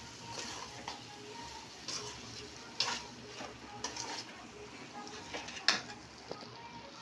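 A spoon stirring tomatoes in a frying pan over a steady sizzle, with scattered scrapes and knocks against the pan. The sharpest knocks come about three seconds in and again near the end.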